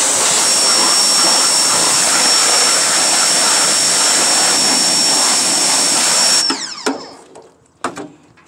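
Pressure washer spraying a jet of water onto a car's engine bay and wheel well: a loud, steady hiss with a high steady whine on top. It cuts off suddenly about six and a half seconds in, followed by a couple of clicks.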